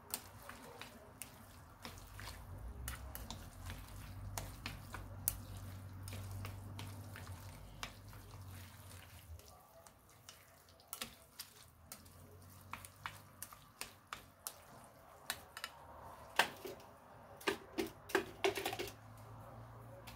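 Wooden chopsticks mixing grated zucchini and carrot batter in a glass baking dish: irregular clicks and taps of the sticks against the glass, coming thicker in the second half. A faint low hum stops about halfway through.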